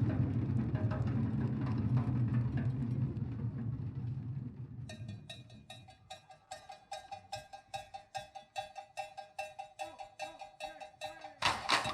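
A low rumble of passing traffic fades out over the first few seconds. Then a stick starts tapping a steady candombe rhythm, about three to four strokes a second, on something that rings with a bell-like tone, with harder strikes near the end.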